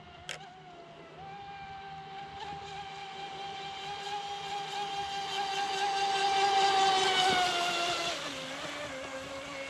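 Pro Boat Impulse 32 RC deep-vee boat's brushless electric motor whining at speed. The pitch steps up about a second in, the whine grows louder to a peak about two-thirds of the way through, then falls in pitch and level near the end as the throttle eases. A single sharp click just after the start.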